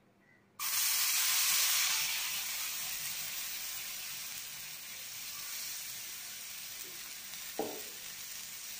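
Butter sizzling as it melts on a hot iron tawa. The sizzle starts suddenly about half a second in, is loudest at first, then settles to a steady sizzle.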